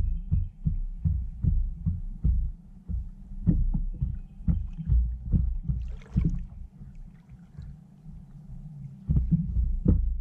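A kayak being paddled: low, irregular thumps and knocks, about two or three a second, from the paddle and the water against the hull. There is a short splash about six seconds in, then a quieter stretch before the thumps pick up again near the end.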